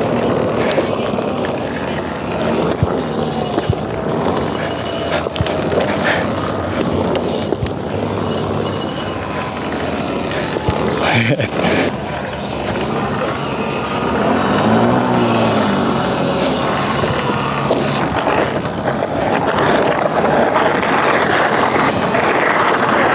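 Wind rushing over the microphone and tyres rolling on asphalt during an electric mini bike ride, with a few sharp knocks. A whine rises and falls about halfway through.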